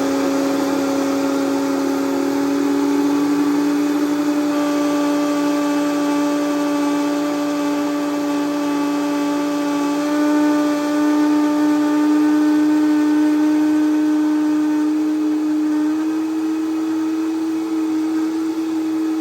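Vitamix blender motor running steadily while its blades grind whole coffee beans. It makes a loud, even hum whose pitch creeps slowly upward, stepping up slightly about ten seconds in.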